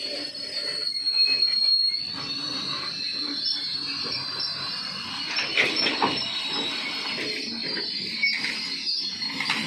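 Freight train of open-top wagons rolling past close by: steady wheel-on-rail rumble with a high wheel squeal, loudest a second or two in. A couple of sharp knocks from the wagons come about halfway through and near the end.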